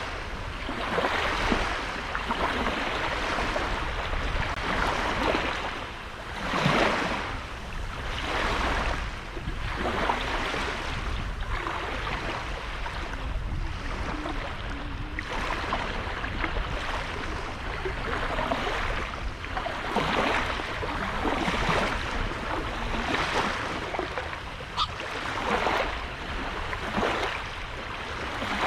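Sea waves breaking and washing onto a sandy beach, a fresh wash every second or two, over a steady low rumble.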